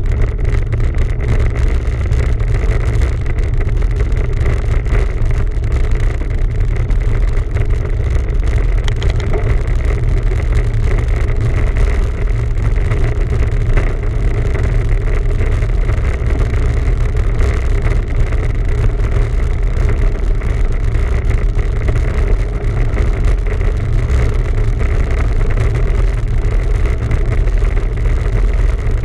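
Steady, loud low rumble of wind buffeting the microphone while cycling, with a faint steady hum over it.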